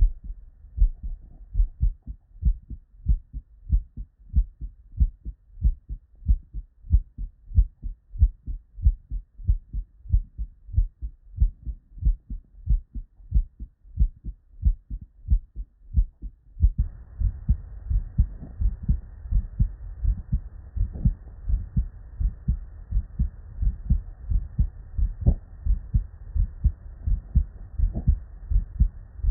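Normal human heart sounds heard through a stethoscope: a steady rhythm of paired beats, S1 and S2 (lub-dub). A little past halfway a different recording takes over, with a faint hiss behind the beats.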